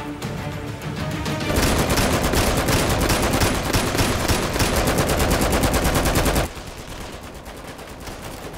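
Rapid automatic rifle fire, a long continuous string of shots starting about a second and a half in and cutting off suddenly near the end, mixed over tense background music.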